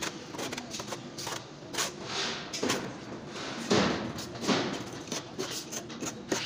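Irregular scraping and knocking of hand tools on wet cement plaster, with the loudest scrape a little under four seconds in.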